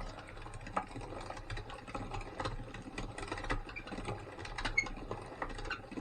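Weston No. 32 meat grinder's motor running under load with a steady hum, with irregular crackling and clicking as tough deer lower-leg meat is forced through the auger and plate.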